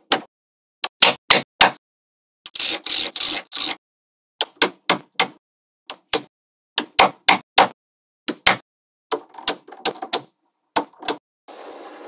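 Small magnetic balls clicking as strips of them are snapped onto a magnet-ball build: sharp single clicks one after another, with a longer rattling clatter of balls about two and a half seconds in.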